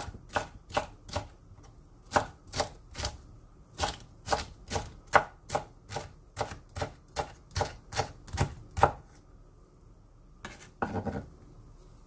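Chef's knife slicing a green bell pepper into strips on a wooden cutting board: steady knife strokes, about two to three a second, that stop about nine seconds in. A couple of heavier knocks follow near the end as the strips are gathered with the blade.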